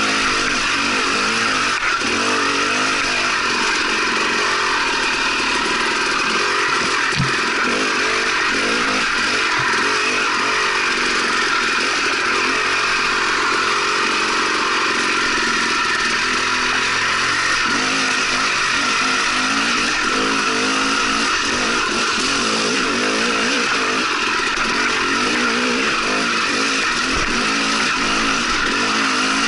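Dirt bike engine running steadily while being ridden along a rough forest trail, its revs changing little.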